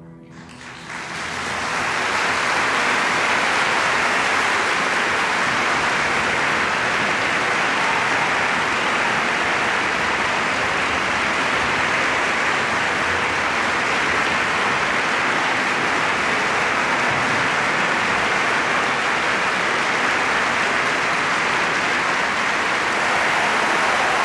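A theatre audience applauding. The clapping swells in over the first couple of seconds as the orchestra's last chord dies away, then holds steady and full.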